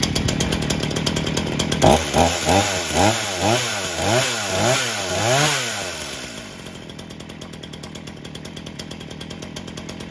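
Ryobi RY3714 14-inch gas chainsaw's two-stroke engine running, then revved up and down in quick blips about twice a second for some four seconds. It then settles to a quieter idle and stops abruptly at the very end.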